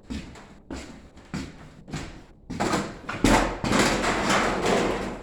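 Sheet metal for a furnace return duct being worked by hand: a string of sharp knocks about every two-thirds of a second, then a louder, longer rattle of the metal lasting about two seconds near the end.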